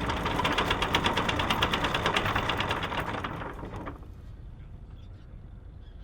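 Fast, even mechanical clatter of a boat's machinery running, dropping away to a much quieter level about four seconds in.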